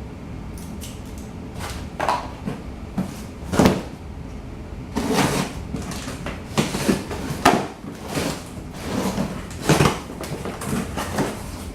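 Packaging for new parts being handled and opened: a string of rustles and scrapes with several sharp knocks, busier in the second half.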